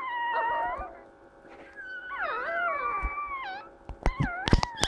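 Newborn Shih Tzu puppies crying: high-pitched squeals that bend up and down in pitch, in three bouts, two puppies at once in the middle one. These are what the owner calls healthy noises. Several sharp knocks come near the end.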